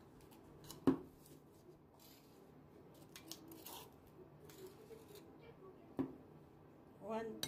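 Kitchen utensils handled at a ceramic mixing bowl: a sharp clink about a second in and another near the end, with soft scraping and rattling of plastic measuring spoons between.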